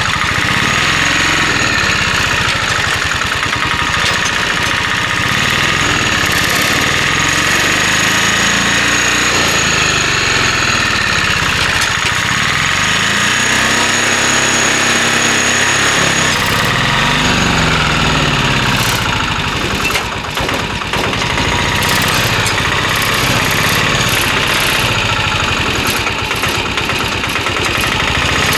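Mahindra Alfa Plus three-wheeler's engine running steadily at idle.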